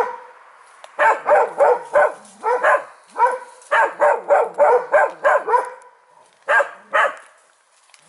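A dog barking in quick runs of short, high barks, about three or four a second, with brief pauses between runs and two last barks near the end.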